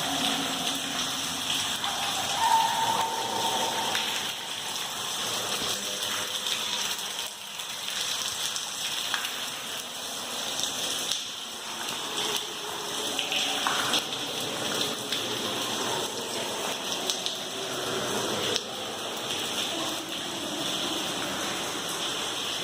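Water dripping and pattering steadily from the roof of a rock railroad tunnel, a dense spatter of drops echoing in the enclosed space. Faint, echoing voices come through now and then.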